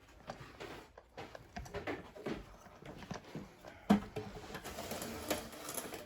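Smoke alarms being handled and sorted through: scattered clicks and rustling, with a sharp knock about four seconds in.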